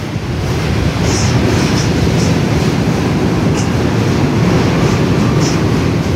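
R68A subway train pulling out of the station, its wheels and running gear rumbling, growing louder over the first second and then steady as the cars pass close by. Short high-pitched squeaks come now and then.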